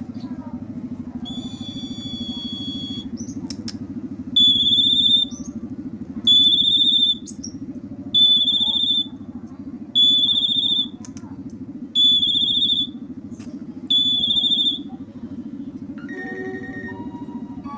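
Asian pied starling (jalak suren) giving a run of clear, high, steady whistles, seven in all at roughly two-second intervals, the first one longer. Near the end they change to lower, more varied notes. A steady low hum runs underneath throughout.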